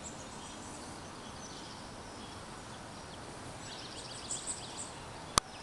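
Outdoor background hiss with small birds chirping in quick, high calls, most densely about four seconds in. A single sharp click near the end.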